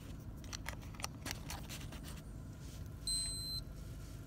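Small handling clicks as a test strip is fitted into a Keto-Mojo blood glucose and ketone meter, then one short high beep from the meter about three seconds in as it takes the strip. A low steady rumble runs underneath.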